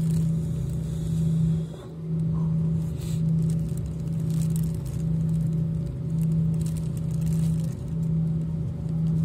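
Cabin drone of a four-engined Airbus A340 with its engines running at low power on the ground: a steady low hum that dips and swells about once a second.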